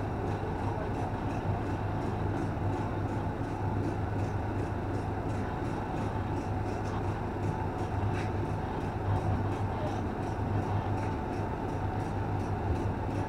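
Fire pumper truck's engine and road noise as it drives, a steady low hum with no siren.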